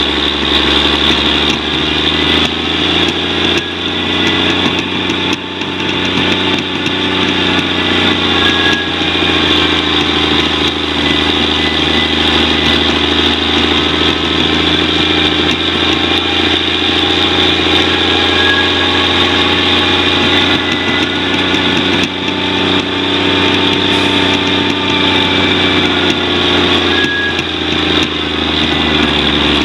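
Diesel engine of a loaded log truck running steadily as it drives a dirt forest road, its pitch drifting slightly, with a steady high hiss over it.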